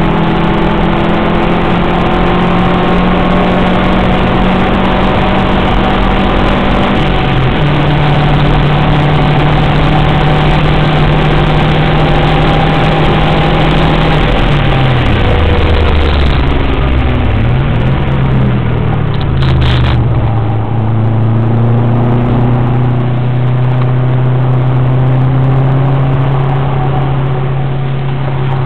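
Subaru WRX's turbocharged flat-four engine pulling hard at track speed over heavy wind and road noise. The pitch drops in a step about seven seconds in, as on an upshift; between about fifteen and twenty seconds in the note falls and climbs back several times, as on braking and downshifting, then settles into a steady pull.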